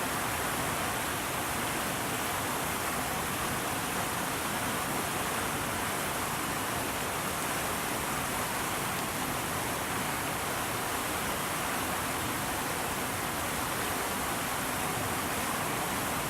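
Steady, even rushing noise that holds the same level throughout, with no distinct sounds standing out.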